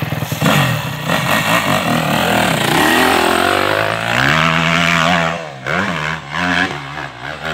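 Dirt bike engines revving hard, the pitch rising and falling with the throttle as a rider works up a steep dirt hill climb.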